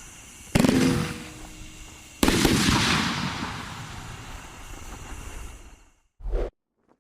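A 500 gram consumer aerial fireworks cake (Folds of Honor) firing its final burst cluster. Two loud aerial breaks land about a second and a half apart, each trailing off in a long fading tail. The sound then cuts out, with one short low thump just before the end.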